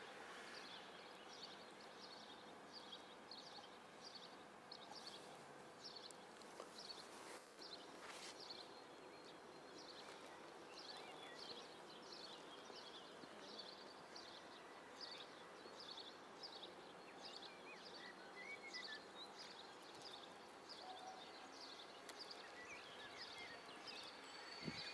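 Quiet open-air ambience with a small bird's short, high chirps repeated about twice a second, over a faint steady hum.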